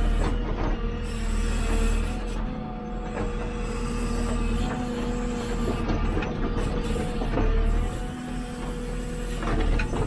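JCB 3CX backhoe loader working its backhoe arm: the diesel engine runs under load with a steady hydraulic whine, and the arm and bucket linkage give several clunks.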